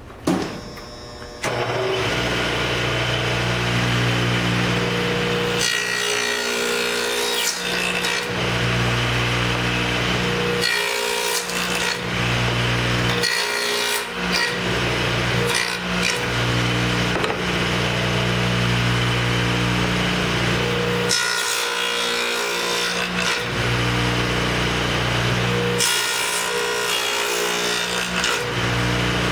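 DeWalt radial arm saw with a dado blade switched on about a second and a half in and running with a steady motor hum. About six times the blade is pulled through rough-sawn cedar in passes of a second or two, nibbling away a tenon cheek; each cut adds a harsher, louder rasp over the hum.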